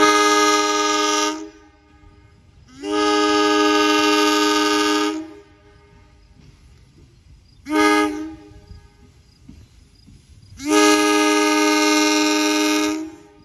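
Two-note horn of a Chicago North Shore Line interurban car sounding four times: long, long, short, long, the standard grade-crossing signal as the car approaches.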